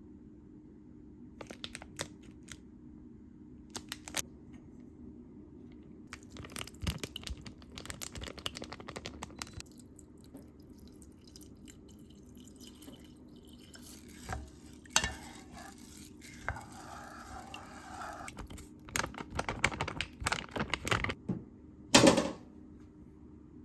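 Paper bags being handled: scattered rustles, crinkles and light knocks, busiest about a third of the way in and again near the end, over a steady low hum.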